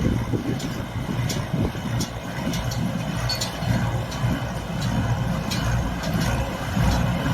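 Small square baler working behind its tractor: a steady low engine drone with irregular sharp clicks and knocks from the machinery.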